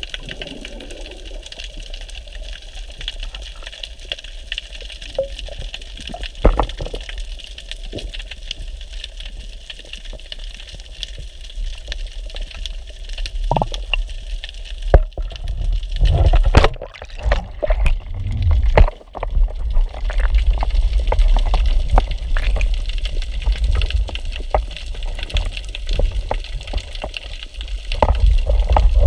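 Underwater sound of a dive: a steady low rumble of water with scattered faint clicks and crackles, a few louder swishing bursts about halfway through, and louder water movement near the end as the camera rises to the surface.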